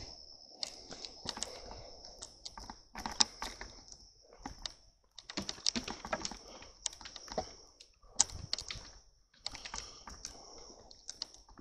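Footsteps crunching and rustling through dry grass and brush, an irregular run of sharp clicks and crackles, over a steady high-pitched insect trill.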